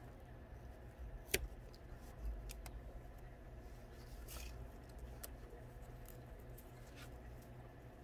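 Faint scraping and clicking of a snap-off utility knife slicing thin pieces off a small block of wood held in pliers, with one sharp click about a second in.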